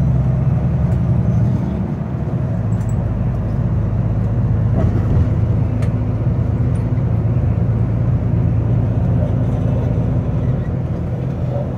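Coach bus engine and road noise as heard inside the passenger cabin while driving: a steady low drone.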